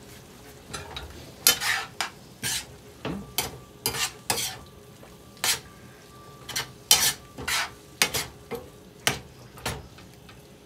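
Metal spoon stirring and scraping chicken and green vegetables around a stainless steel skillet, in irregular strokes about two a second, while the food sizzles over the gas flame.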